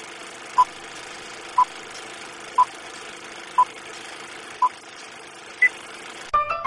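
Steady whir of an old film projector as a sound effect, with a short beep once a second, five in a row, then one higher beep. Piano music starts near the end.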